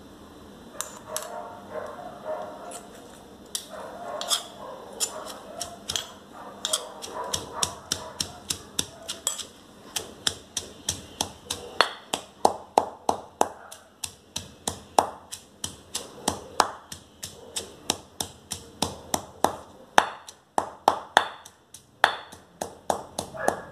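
Stone mortar and pestle pounding a Northern Thai chilli paste of dried chillies, garlic, shallots, lemongrass and shrimp paste. The first part is lighter knocks and scraping. From about ten seconds in come steady, hard pestle strikes, about two a second.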